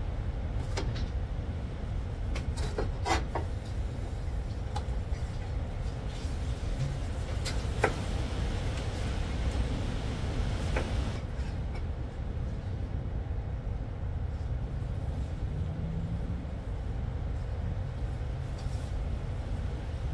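A kitchen knife slicing tomatoes on a cutting board, giving a few scattered taps and clicks, over a steady low rumble.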